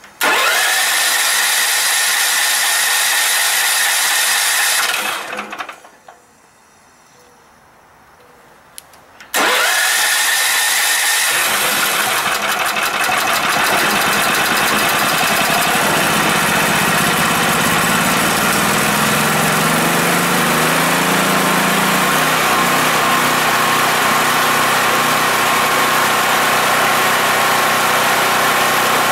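Starter motor cranking the Yamakoyo SH7000DXE generator's 13 hp engine for about five seconds, then stopping. After a short pause it cranks again, and about two seconds later the engine catches and runs on natural gas. Its speed wavers for several seconds while the gas valve is adjusted, then it settles into steady running on a very small flow of gas.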